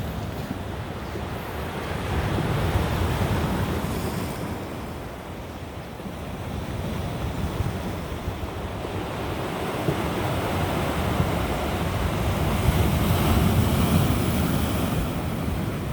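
Ocean surf washing onto the shore, swelling louder twice, with wind buffeting the microphone.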